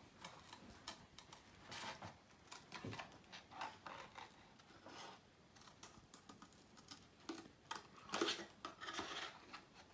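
Hand scissors cutting thin cardboard in faint, irregular snips.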